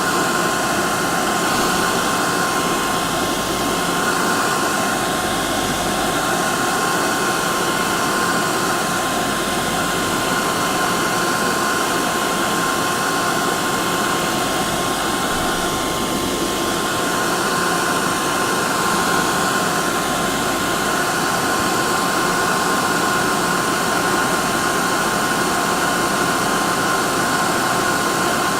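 Hair dryer running steadily: a continuous rushing blow of air with a steady whine from the motor and fan.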